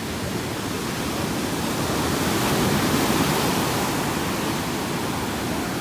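Ocean surf washing onto the beach: a steady rush of noise that swells to a peak about three seconds in and eases off again.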